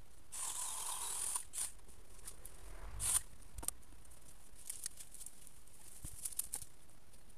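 Cut hazel branches and twigs rustling and crackling as they are gathered up and carried through ground cover. There is a rustle lasting about a second near the start, a sharper crack about three seconds in, then scattered small snaps and clicks.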